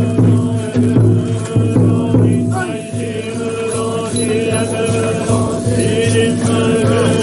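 Many voices chanting a Buddhist mantra on one steady low pitch, with metal rattles jingling in a regular beat.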